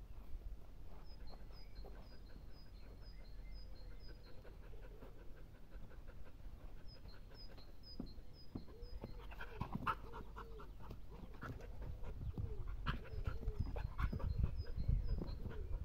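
Mixed-breed dog panting hard while playing with a ball, getting louder in the last few seconds as it leaps for it. A bird chirps in short runs of quick repeated notes in the background.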